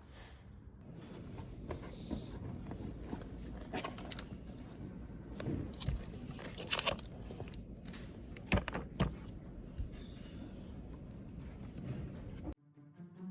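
Irregular crunching and scraping close to the microphone, with a number of sharp crackles, stopping abruptly near the end.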